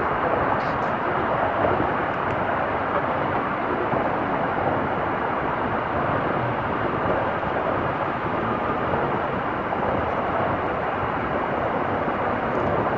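Steady, even rumble of traffic noise from the elevated highway overhead, with a few faint clicks in the first couple of seconds.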